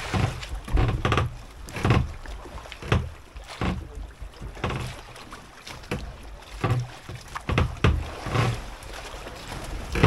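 Waves slapping irregularly against a fishing boat's hull, a dull splash or knock about once a second.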